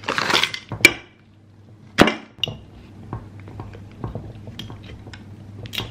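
Coffee capsules rattling and clinking as they are poured from a box into a glass jar, followed by scattered clicks and knocks, one sharp knock about two seconds in, as the capsules settle and the glass lid is set on the jar.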